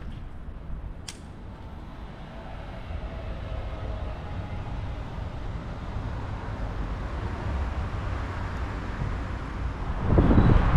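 Wind rumbling on the microphone, with a single sharp click about a second in. In the last second the rumble turns much louder and gustier.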